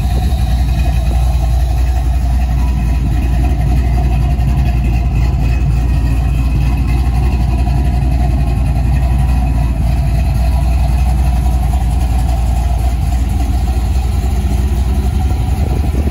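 1964 Ford F100's swapped 6.0 L L96 LS V8 idling steadily.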